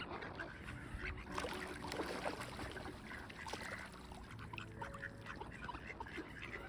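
A group of ducks quacking, many short calls overlapping, over a low rumble of wind.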